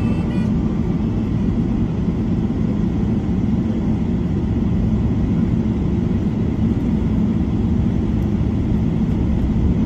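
Steady low rumble inside the cabin of a Boeing 777-300 airliner taxiing, its engines running at low thrust.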